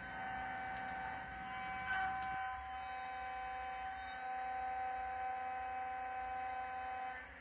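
CNC milling machine's spindle and end mill running an outside 2D contour finishing pass with flood coolant: a quiet, steady whine.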